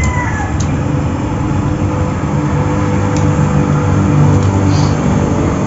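A steady, loud low motor hum.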